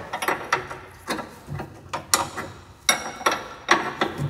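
Hand ratchet clicking in short, irregular strokes, with metal clinks, as a 21 mm steering idler-arm bolt is tightened by hand.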